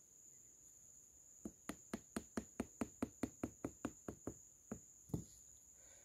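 A rapid run of sharp, evenly spaced clicks, about five a second, starting about a second and a half in and lasting some three seconds, with one more click near the end, over a faint steady high-pitched whine.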